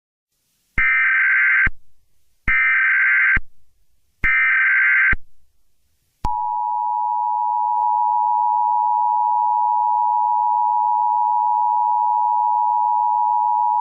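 Emergency Alert System SAME header: three short bursts of warbling digital data tones, about a second apart. About six seconds in, the EAS two-tone attention signal (853 and 960 Hz) comes in and holds steady, announcing that an emergency alert message follows.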